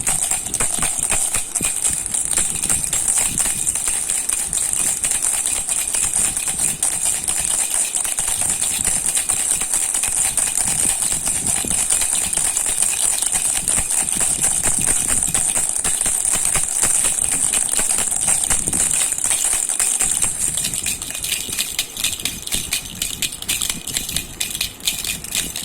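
A baby rattle (jhunjhuna) shaken continuously: a rapid, dense rattling with a steady high jingling ring. The ring fades out about twenty seconds in and the rattling goes on thinner.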